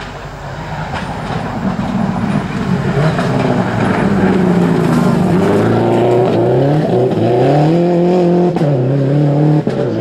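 Subaru Impreza Group N rally car's turbocharged flat-four engine approaching at speed on a gravel stage and growing louder. Its pitch rises and falls through gear changes as it passes, with gravel spraying from the tyres, and the throttle is briefly cut near the end.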